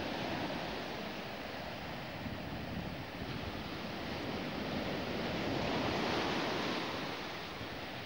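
Sea surf breaking and washing up a sandy shore, swelling to its loudest a little past midway and then easing, with wind buffeting the microphone.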